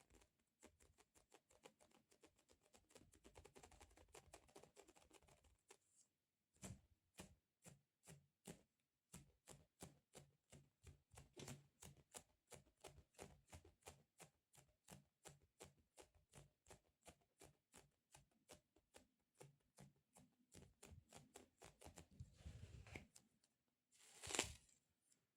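Soft rapid tapping on sticky squishy stress-relief toys, several light taps a second, with one louder rustling handling sound near the end.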